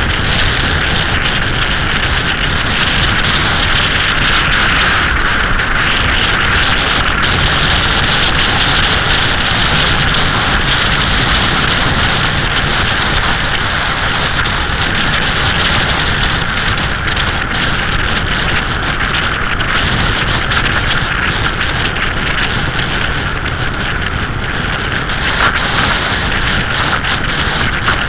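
Wind rushing over the microphone of a motorcycle at steady cruising speed, with the Suzuki SV1000S's V-twin engine running underneath. The level holds steady throughout.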